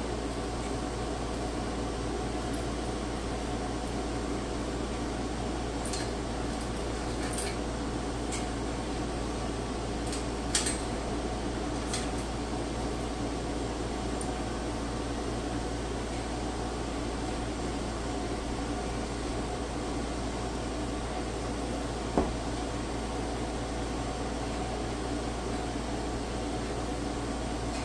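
Steady hum of a small electric motor running without a break, with a few light clicks, the sharpest about ten seconds in and another near twenty-two seconds.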